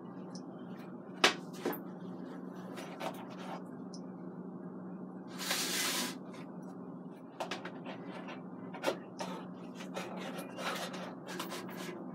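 Metal spatula knocking and scraping in a disposable aluminium foil pan as cornbread is cut and lifted out: scattered sharp clicks, with a longer scrape about five and a half seconds in. A steady low hum runs underneath.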